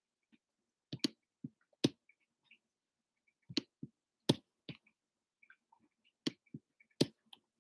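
Scattered sharp clicks and light taps at irregular intervals, about a dozen in all.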